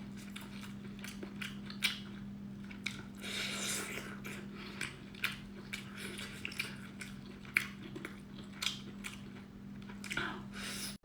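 Close-up eating of a cooked sea snail: chewing and mouth sounds with many small sharp clicks of shell or utensils, over a steady low hum.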